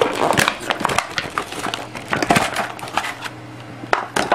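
Irregular clicking and cracking of hard plastic as a cheap electric airsoft pistol, a Taurus PT-92 replica, is handled and opened up.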